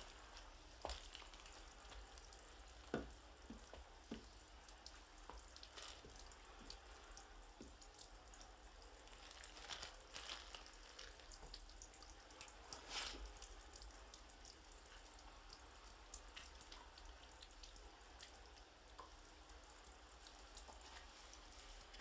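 Near silence: a faint even hiss with scattered small clicks and ticks.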